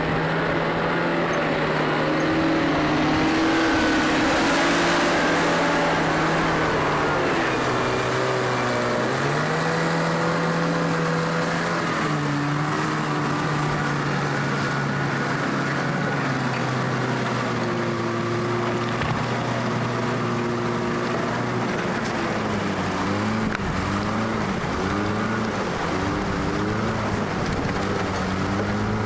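A motor vehicle's engine running steadily, its revs rising and falling again and again.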